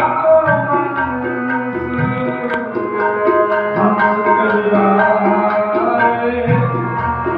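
Tabla playing a steady rhythm with deep, resonant bass-drum strokes, over held harmonium chords, as accompaniment in Sikh shabad kirtan.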